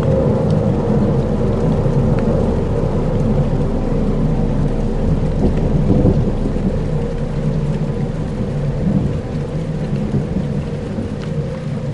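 Dark ambient soundscape: a steady, deep rumbling drone layered with a rain-like hiss and faint sustained tones, with occasional soft ticks.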